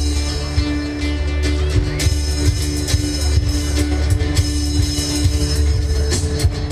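Music: an acoustic guitar played over a heavy, steady bass and drum backing.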